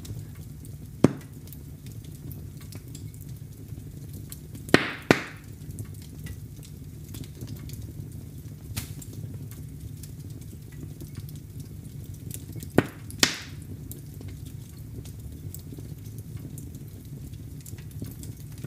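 Fire burning in a fireplace: a steady low rumble with sharp crackling pops, one about a second in, a quick double pop after about five seconds, and another double pop about two-thirds of the way through.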